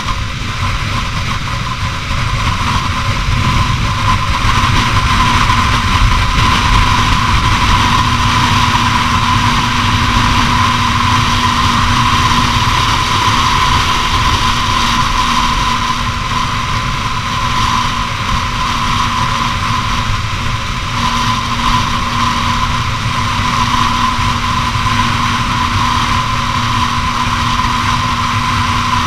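Honda CBR250R motorcycle at a steady freeway cruise: the engine runs at constant speed with an even whine, under heavy wind noise.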